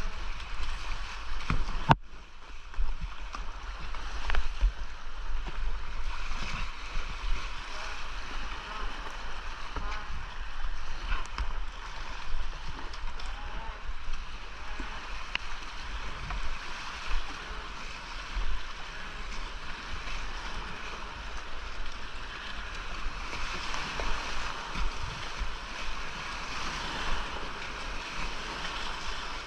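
Whitewater of a creek gorge rushing and splashing around a racing kayak, picked up by a GoPro Hero 11 with a constant low rumble underneath. A few sharp knocks stand out, the loudest about two seconds in.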